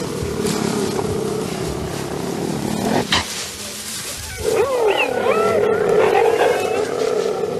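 Several cheetahs growling and yowling: a drawn-out moaning growl, a short sharp burst about three seconds in, then from about four and a half seconds many overlapping wavering calls that rise and fall in pitch.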